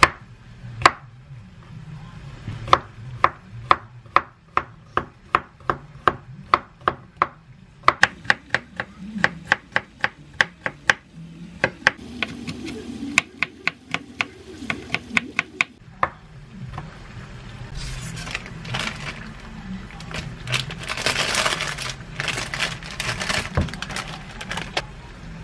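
Chef's knife chopping a cucumber on a wooden cutting board: a run of sharp knocks, about three a second and quickening for a while, that stops around the middle. Paper wrapping crinkles and rustles near the end.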